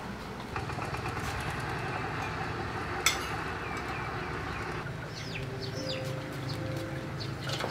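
Chickens clucking over a steady low background hum, with one sharp click about three seconds in.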